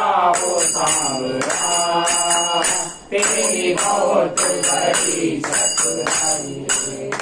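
Devotional bhajan sung by a small group of voices, with a metallic jingling percussion instrument struck in a steady beat about twice a second. The singing briefly drops out about three seconds in and fades near the end.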